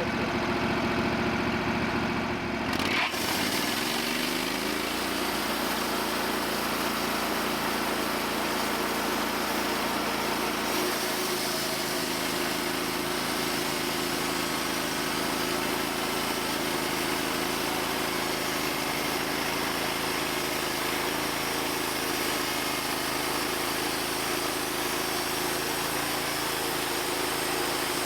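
Portable band sawmill's engine idling, then revving up about three seconds in and running steadily at speed as the band blade makes a squaring cut along a log.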